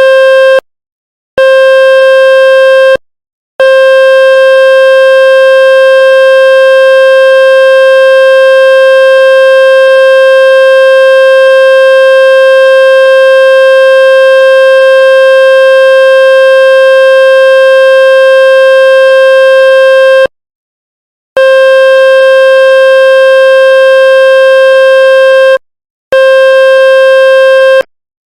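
Loud electronic tone at one steady pitch, buzzy with many overtones, broken a few times by short silences. It is a tone played to shake water out of a wet speaker.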